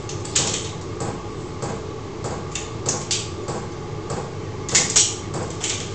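Hand wire stripper working the insulation off an electrical cable: a run of short, irregular scraping clicks and crunches. A steady low hum runs underneath.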